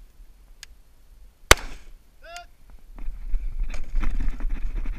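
A single rifle shot about a second and a half in, from an AR-style rifle, followed shortly by a brief falling-pitch sound. From about three seconds in there is rustling and clicking of the rifle and gear being handled, with wind buffeting the microphone.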